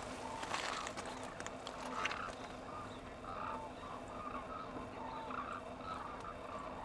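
A flock of hooded cranes calling from a distance, many short overlapping call notes throughout, over a faint steady low hum.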